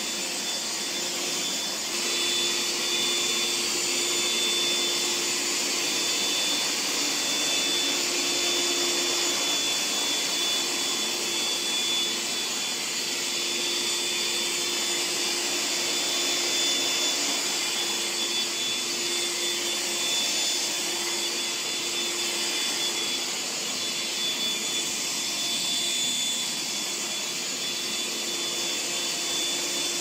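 Electrolux/Eureka TheBOSS Superlight 401 bagless upright vacuum cleaner running steadily as it is pushed over carpet to pick up scattered oats. Its motor gives a steady high-pitched whine and a lower hum over the rush of air.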